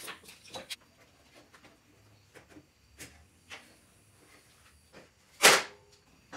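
Tools and parts being handled and moved around a cluttered workshop: scattered light knocks and clicks, then one much louder impact about five and a half seconds in.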